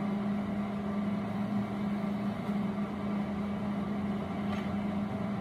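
Steady mechanical hum with one constant droning tone and no distinct knocks or strikes.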